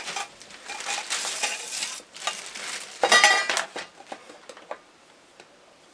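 Chrome-plated metal and black tubular garment-rack bars clattering and scraping as they are handled, with one loud ringing metallic clink about three seconds in and a few small taps after it.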